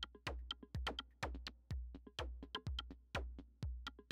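Electronic background music: a steady drum-machine beat of about two kicks a second over a low bass, with lighter clicks between the kicks.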